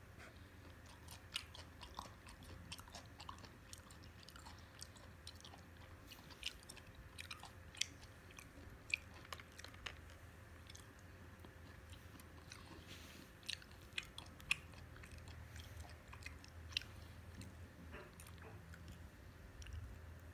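A person chewing raw fish sashimi close to the microphone: irregular wet mouth clicks and smacks, a few sharper than the rest.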